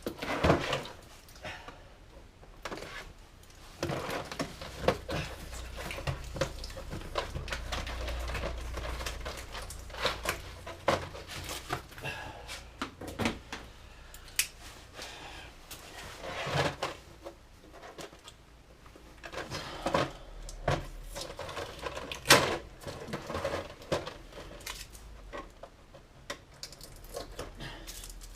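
Unpacking a plastic modular tool tray of ratchet spanners: irregular clicks, knocks and rustles as the tray and its tape and wrapping are handled, with one sharper knock about two-thirds of the way through.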